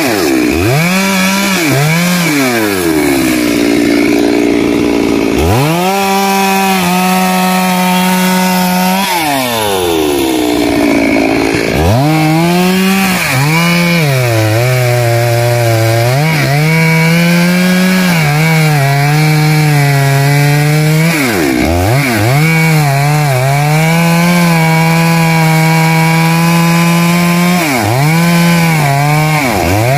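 Stihl MS 382 two-stroke chainsaw cutting through a thick rain tree trunk. The engine is held at high revs, its note sagging as the chain loads up in the wood and dropping and picking back up several times between pushes.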